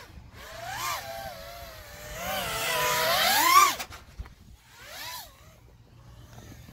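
A 5-inch FPV freestyle quadcopter's motors whining, the pitch rising and falling with the throttle. It climbs to a loud high whine about three and a half seconds in, then drops away suddenly, with a short throttle blip a second later.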